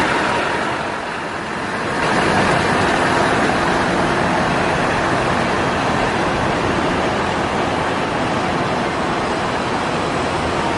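Scania R 580's V8 diesel engine running as the truck slowly tows a heavily loaded multi-axle trailer past, a steady mechanical noise that dips briefly about a second in.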